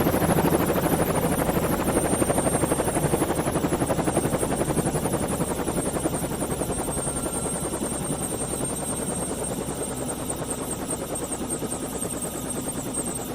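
A rapid, steady pulsing mechanical noise that fades slowly.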